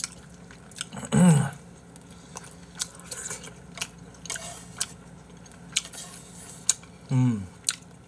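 Eating at a table: chewing, with scattered small clicks and taps of chopsticks against bowls. Two short vocal hums falling in pitch, one about a second in and one near the end.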